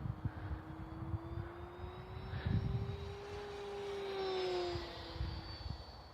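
Electric motor of a radio-controlled model Lightning jet whining in flight, its pitch and loudness rising as it approaches and then dropping as it passes, about four and a half seconds in. Gusts of wind rumble on the microphone throughout.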